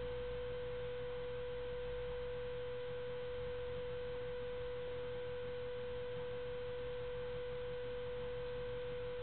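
A steady, unchanging mid-pitched tone with fainter overtones above it and a low hum beneath.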